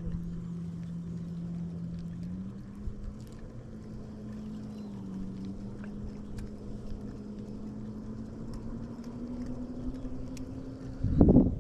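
A boat motor running steadily with a humming tone that steps up in pitch a little over two seconds in and then rises slowly, as the motor speeds up. A short, loud bump is heard near the end.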